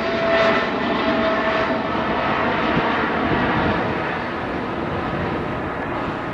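Boeing 777-300ER's twin GE90-115B turbofans at climb power just after takeoff: a steady jet roar with a faint whine, slowly fading as the airliner climbs away.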